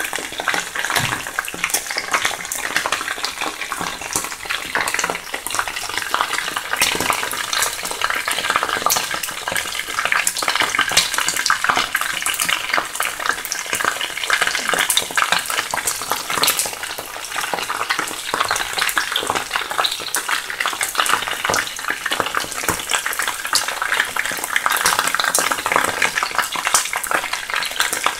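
Chicken wings frying in hot oil in a pan: a steady sizzle with dense, constant crackling.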